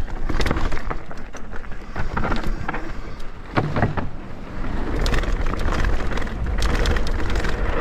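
Mountain bike riding down a rough dirt trail: wind rumbling on the microphone, tyres running over the ground, and frequent rattles and knocks from the bike over bumps.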